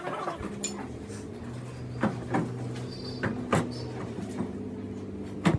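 A steady mechanical hum with several sharp knocks over it, the loudest near the end.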